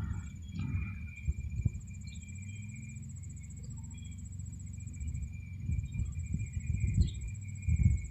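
Insects, likely crickets, trilling steadily in a high, rapid pulse. Under it run a low hum of honeybees at an open hive and dull knocks and rustling from frames being handled.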